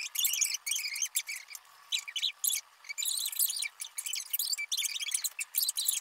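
Sped-up, high-pitched chipmunk-style voices chattering in quick squeaky bursts, with no low sound beneath them.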